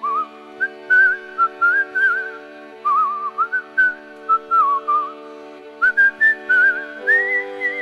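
Background music: a whistled tune, its pitch wavering up and down, over steady held chords that change about seven seconds in.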